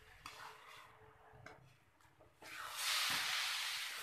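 Spatula scraping and stirring grated carrot halwa in a steel kadhai: a few short strokes, then a steady sizzling hiss starts a little over halfway through. The hiss is the halwa frying in ghee as its last moisture cooks off.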